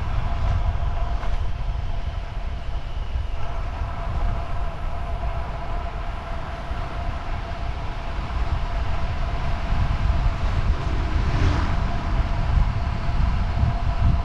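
Wind buffeting the microphone and road noise while riding a road bike at speed, with a steady hum over it and a short swell of rushing noise near the end.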